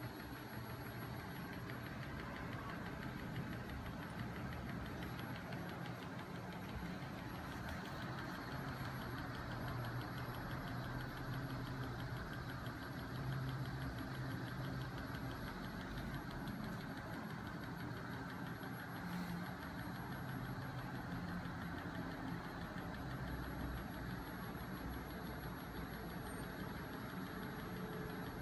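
Homemade magnet-engine rig running steadily: a small 12 V electric motor turning a 5 kg flywheel and magnet-carrying crank arms, giving an even mechanical whir with a fast, regular ticking.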